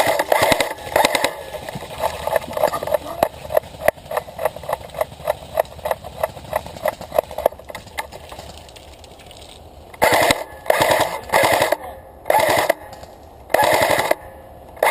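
Airsoft guns firing. First comes a steady run of sharp clicks, about four a second, lasting several seconds. After a lull, several short loud bursts of rapid fire start about ten seconds in.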